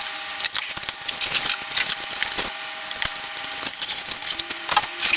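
Soundbar packaging and parts being handled by hand: a dense run of crackles, rustles and small clicks.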